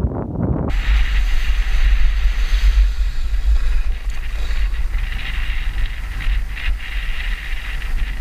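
Wind buffeting the microphone while skiing, with the steady hiss of skis sliding over packed snow. The sound changes abruptly about a second in, becoming a stronger low rumble.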